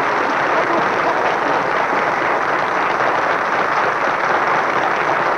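A large audience applauding, a dense, steady clapping that goes on at full strength, on an old film soundtrack.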